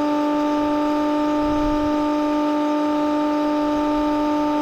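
Milwaukee battery-powered transfer pump running at a steady pitch, its motor giving an even whine while it pumps water out of a flooded hole.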